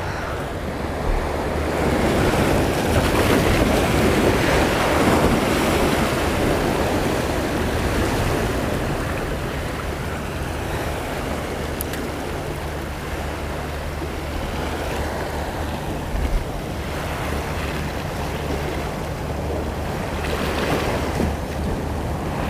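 Sea waves washing against shoreline rocks, swelling and easing, with wind buffeting the microphone.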